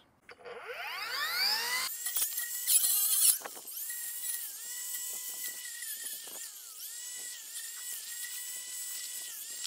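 Cordless brushless weed trimmer fitted with a 40-tooth circular saw blade, spinning up with a rising whine and then running at a steady high whine. The whine dips in pitch now and then as the blade cuts into branches and weeds, with a burst of cutting noise about three seconds in.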